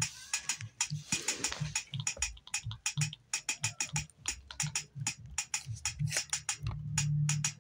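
Rapid sharp clicks mixed with low thumps, several a second in an uneven rhythm, with a short held low hum near the end.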